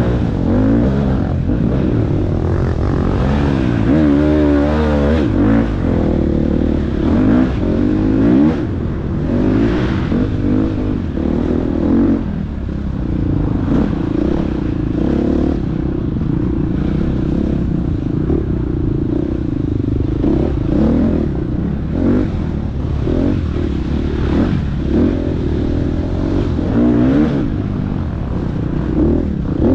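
Dirt bike engine revving up and down continuously under hard riding, the pitch climbing and dropping with each throttle change and shift, with clattering and scraping from the bike over rough ground.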